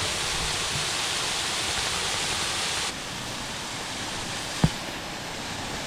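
Steady rushing of a waterfall, dropping a step in level about three seconds in. A single sharp knock sounds near the end.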